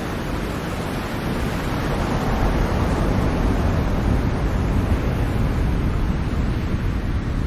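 Ocean waves, a steady rush of surf that swells about a second or two in and stays loud.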